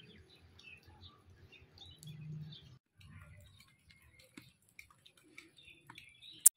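Small birds chirping in short, scattered calls over a faint low rumble, with one sharp click near the end.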